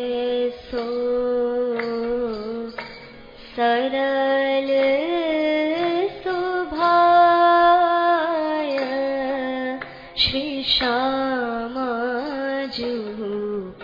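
Hindi devotional kirtan: a voice sings a line of a pad in long, ornamented held notes over musical accompaniment, with short breaks between phrases.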